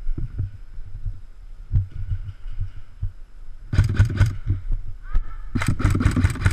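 Paintball marker firing: a quick burst of about four shots a little under four seconds in, then a faster string of shots at about seven a second near the end. Low, uneven thuds of movement come before the shots.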